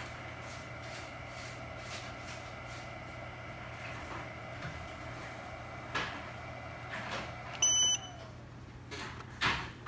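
Steady electrical hum with a few light clicks, then a short high beep about three-quarters of the way through as the bench DC power supply's over-current protection trips on the Samsung's current spike at power-on and cuts its output. A couple of louder clicks follow near the end.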